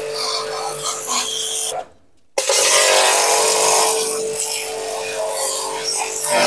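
Aimex DT-6502 electric pressure washer running with a steady hum while its water jet hisses against a motorcycle's frame and wheel. The sound cuts out for about half a second roughly two seconds in, then returns louder.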